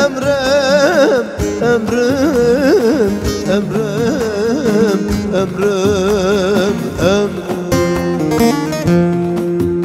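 A man's voice singing a long, wavering, ornamented Turkish folk melody over guitar, fading out about seven seconds in. A few plucked guitar notes follow, and a final chord is held ringing at the song's close.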